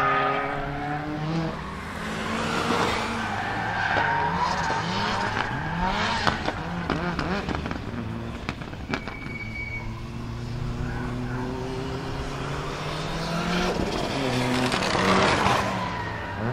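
Turbocharged 2.0-litre four-cylinder of a tuned Lancia Delta Integrale Evo 2 with a large Garrett turbo and an external wastegate, revving up and down hard through the gears as the car is driven around a kart track. It gives a few sharp cracks about six seconds in, and the tyres squeal as the car slides through the corners.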